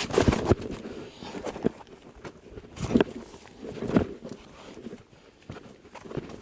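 A hiker's footsteps on a dirt trail: uneven steps about a second apart, strongest in the first four seconds and softer near the end.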